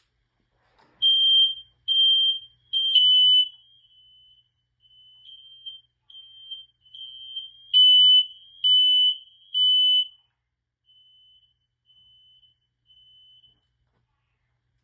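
Smoke alarms sounding in high-pitched three-beep bursts. One loud alarm beeps three times about a second in and three times again near eight seconds, with fainter beeping from another alarm between and after the loud groups.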